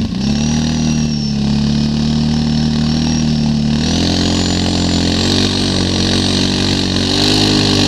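ATV engine running steadily while towing a skier, its pitch stepping up slightly about halfway through as it speeds up. A steady hiss comes in at the same point.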